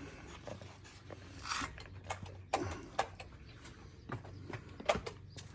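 A few faint, sharp taps and knocks with soft scuffs in between, the sounds of light handling of a metal workpiece and welding gear.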